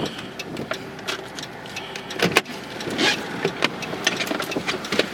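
Inside a car's cabin: the vehicle's running noise, with irregular sharp ticks and knocks throughout and a louder knock about two and a half seconds in.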